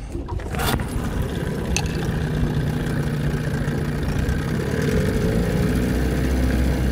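1981 Johnson Seahorse 15 HP two-stroke outboard motor starting, already warm and with no choke, catching about a second in and then idling steadily.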